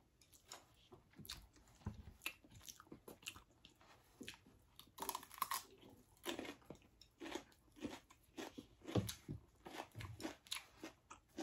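Close-up chewing and biting of crunchy food, with irregular crisp crunches and soft mouth sounds that come in clusters.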